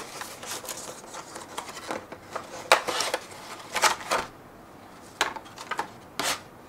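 Cardboard box and clear plastic blister tray being handled: irregular light clicks, taps and crinkles as the tray comes out of the box and is set down on the table.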